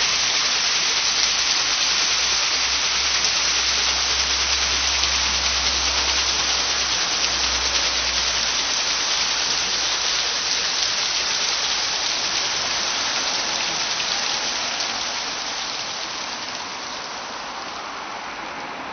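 Water cascading off a waterwheel in a steady splashing rush, which fades gradually over the last few seconds.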